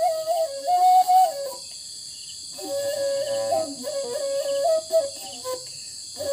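Long bamboo transverse flute (Tripuri sumui) playing a slow melody of held and stepped notes, pausing for breath about a second and a half in and again near the end. Crickets chirr steadily in the background.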